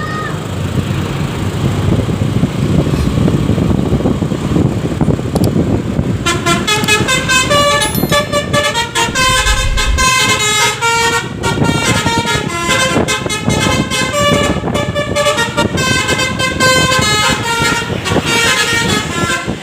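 Bus engine and road noise, then from about six seconds in a Basuri V3 telolet horn plays a long run of quick, stepping notes: the multi-tone musical bus horn. It keeps playing over the rumble of the engine.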